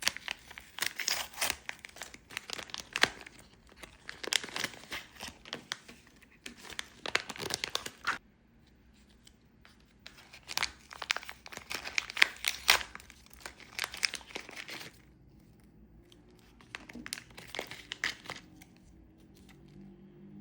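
Thin plastic wrapping crinkling and tearing in three spells with short pauses between them, the last one fainter.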